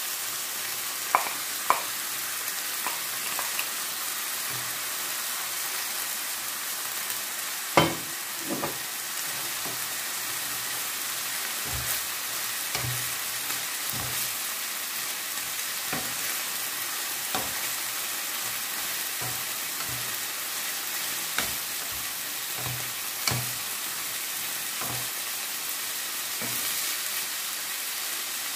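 Minced meat, onion, green pepper and grated carrot sizzling in a nonstick frying pan. A wooden spatula stirs and knocks against the pan, with the loudest knock about eight seconds in.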